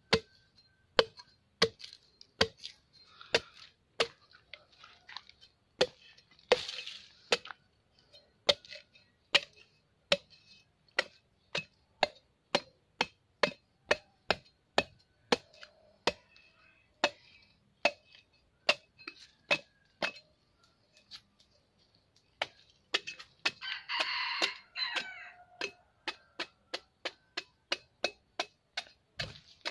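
Machete chopping into the husk of a green coconut in steady, sharp strokes, about one and a half a second. A rooster crows once in the background about two-thirds of the way through.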